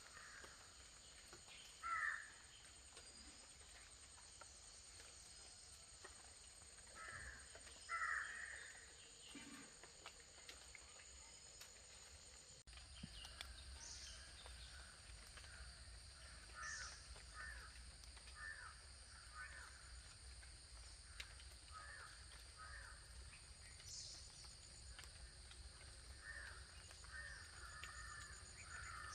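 Crows cawing in an outdoor village soundscape: two loud caws about two and eight seconds in. Later come many fainter repeated bird calls, over a faint steady high-pitched background.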